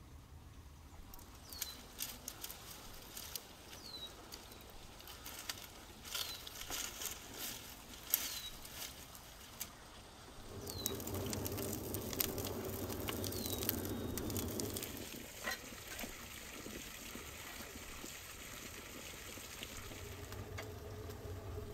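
Dry brushwood rustling, cracking and snapping as a bundle of dry branches is pushed down into a clay tandoor, loudest for a few seconds around the middle. A short, high, falling chirp, likely a bird, repeats every second or two through the first half.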